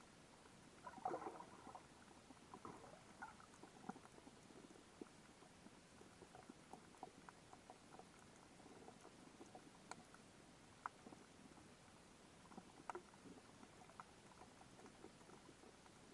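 Faint underwater reef sound: scattered sharp clicks and ticks, a few a second, over a low hiss, with a rougher crackling cluster about a second in.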